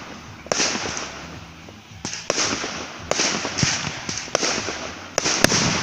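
Fireworks display bursting: a string of sharp bangs, roughly one to two a second at uneven intervals, with crackling between them.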